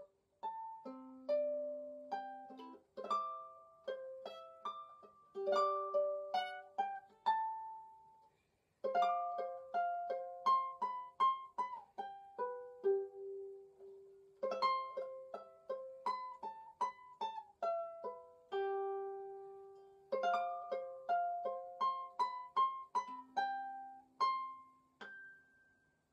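Background music: a light melody of short plucked notes, played in phrases with brief pauses, stopping near the end.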